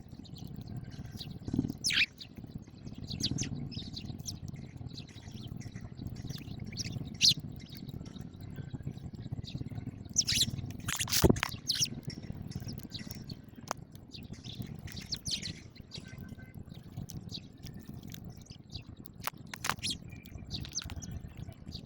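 House sparrows chirping, many short chirps scattered irregularly, over a low steady background hum. A single sharp click stands out about halfway through.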